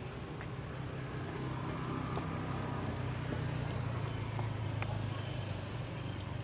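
A motor vehicle's engine running with a steady low hum that swells a little through the middle, with a few faint clicks over it.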